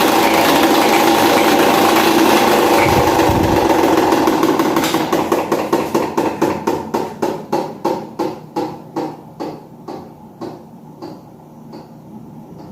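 Britânia Philco 155W electric fan running at speed, then about four seconds in its motor winds down. As the blades coast to a stop, a regular ticking comes through that slows and fades toward the end.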